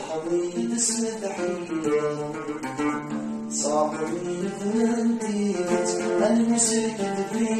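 A man singing a Kabyle song with long, bending notes, accompanying himself on a plucked mandole.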